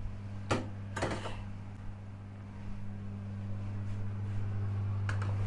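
Steady low hum, with two sharp clicks about half a second and a second in as the attachment of an electric kitchen machine is unclipped after puréeing tomatoes.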